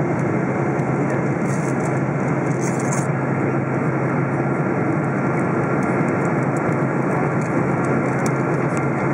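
Steady cabin noise inside a Boeing 777-200 airliner on descent: a constant rush of airflow with a low engine hum, holding level throughout.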